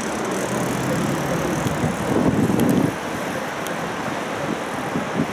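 Siemens Combino tram running slowly along the street, heard from inside the car as a steady rumble and hiss. It swells for about a second around two seconds in, then drops back suddenly.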